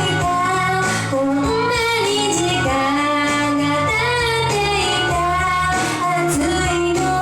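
A song: a high, young-sounding female voice sings a melody with held, wavering notes over a steady instrumental backing.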